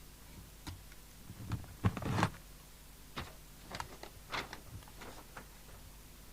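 Scattered clicks, taps and knocks from handling tools and equipment on a radio repair bench, the loudest cluster about two seconds in, over a steady low hum.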